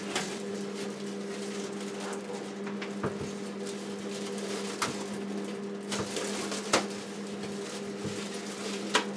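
A steady low hum, with scattered sharp clicks and knocks from a new two-slice toaster being handled and set up on a counter.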